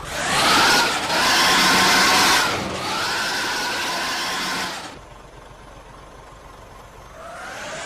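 Bus engine revving hard twice, each rev rising and falling in pitch with a strong hiss, then dropping back to a low idle. It starts to rise again near the end.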